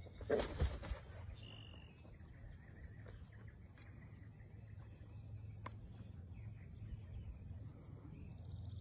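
Black vulture's wings flapping as it launches off a gloved arm close by: a short burst of several wingbeat whooshes in the first second. After that, faint open-air background with faint distant bird calls.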